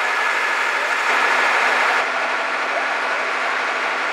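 Fire engine's engine idling steadily, with a thin steady high whine over the running.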